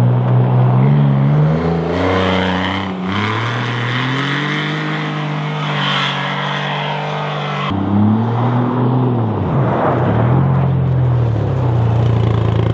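Polaris Ranger 1500 UTV engine running through an EVP aftermarket center-exit muffler. The exhaust note rises and falls in several slow swells as it is revved or driven, dips once, and settles into a steady run near the end.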